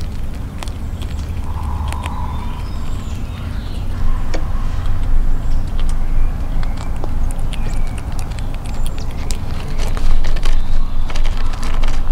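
Gray squirrel close to the microphone cracking and gnawing peanut shells and scrabbling on the wooden surface: scattered small sharp clicks and crackles, busier from about four seconds in, over a steady low rumble.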